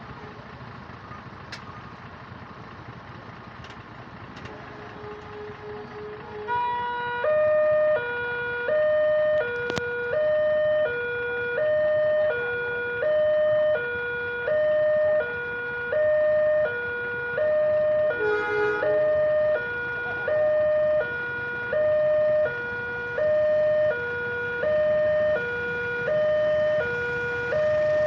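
Railway level-crossing warning siren switching on about six seconds in: an electronic two-tone sound alternating evenly between a high and a low note, about one high-low cycle every second and a half, over low steady background noise.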